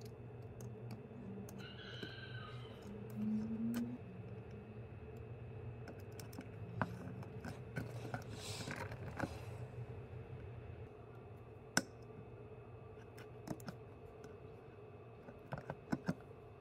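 Faint clicks and rustles of hands handling a hand-wired perforated circuit board and its wire leads, with a brief swish about halfway and a few sharper clicks near the end, over a steady low hum.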